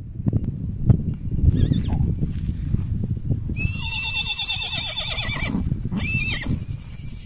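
Horses whinnying on a horse farm: a short call about a second and a half in, a long wavering whinny of about two seconds near the middle, and another short call near the end, over continual low thuds and knocks.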